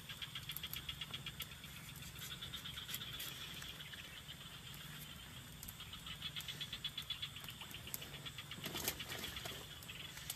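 Chorus of calling frogs and insects: fast trains of high-pitched pulses that come in bouts, over a low steady hum.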